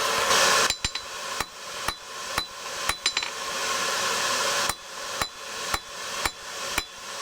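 Blacksmith's hammer striking hot steel on an anvil, blows coming steadily about twice a second, each with a short metallic ring. A steady rushing noise sounds at the start and again for a stretch in the middle.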